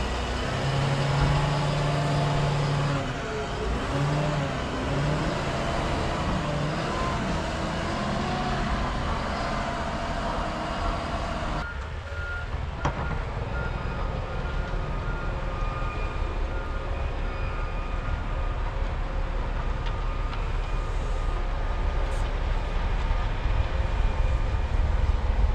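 Heavy snow-removal machinery at work: diesel engines rising and falling in pitch as the machines scrape packed snow and ice off the road. After an abrupt change about halfway through comes a steadier low engine rumble with intermittent reversing beeps.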